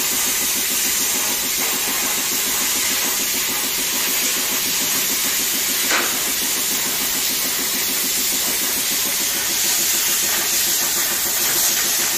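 Plasma cutter torch hissing steadily as its arc of current and air cuts through the steel of an oil drum, with a fast low buzz underneath. A single brief click about six seconds in.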